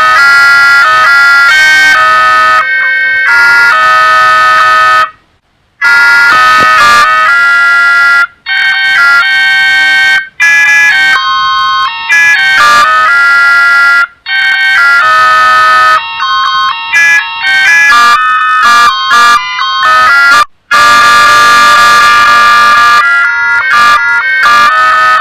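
Electronic ringtone melodies of a Panasonic KX-TG1311AG cordless phone, played one after another with short silent gaps between them, put through a distorting audio effect and very loud.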